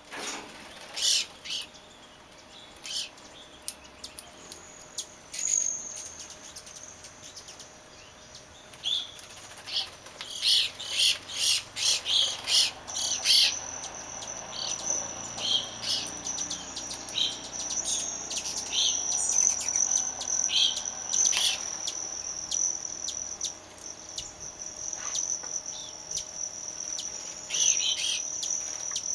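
Small birds at a feeder chirping and calling: many short, high chirps, thickest around the middle. A steady high-pitched insect-like tone joins a little under halfway in.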